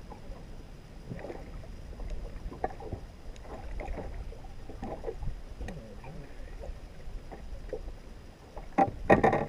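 Lake water lapping and sloshing against the boat hull and around a landing net held in the water with a pike at it, with scattered small knocks. About nine seconds in, a short, much louder burst of splashing and knocking as the fish moves in the net.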